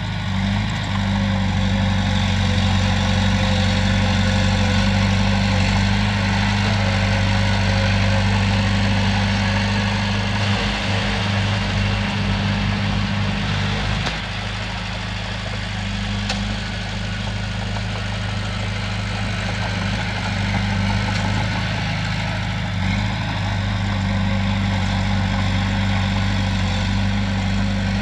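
Komatsu bulldozer's diesel engine running steadily with a deep, even hum, easing slightly in level about halfway through.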